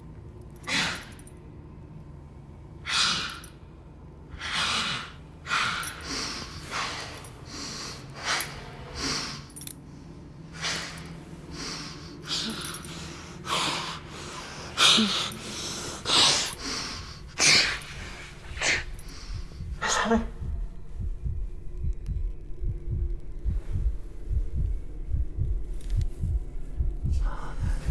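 A woman's frightened breaths and gasps through the nose with a hand clamped over her mouth: short, sharp, irregular breaths a second or two apart, crowding together towards the middle. After about 20 seconds they stop and a low, rapid pulsing comes in.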